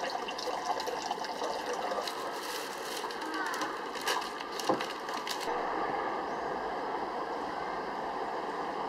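Outdoor background ambience with indistinct voices of people, and a few sharp clicks or knocks in the middle; the sound changes abruptly about five and a half seconds in, at a cut.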